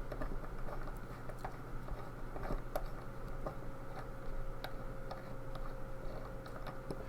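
Small, irregular metal clicks and taps of tools and lock parts while a lock core is being taken apart and its spring-loaded bullet piece disarmed. A faint steady hum runs underneath.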